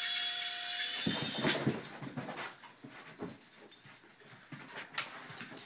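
Small RC helicopter's electric motor and rotor whining steadily, cutting off about a second in. Then a blue heeler makes short whining sounds amid irregular knocks and scuffling.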